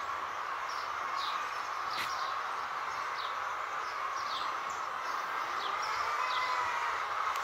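A flock of chickens at feeding time making a steady din of clucking, with short high falling calls repeating every second or so over it.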